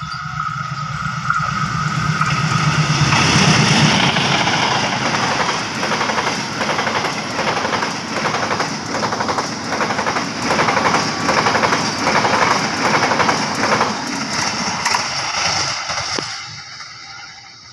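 Diesel-hauled passenger train passing at speed close by: the locomotive's engine hum swells as it goes past, then the coaches' wheels clatter on the rails in a steady rhythm, fading near the end as the train draws away.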